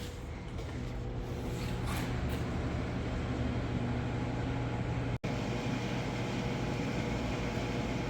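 A steady low mechanical hum, broken by a split-second dropout about five seconds in.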